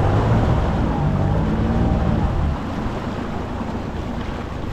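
Boat's outboard motor running at slow trolling speed, with water and wind noise around it; the engine sound weakens and gets a little quieter about two and a half seconds in.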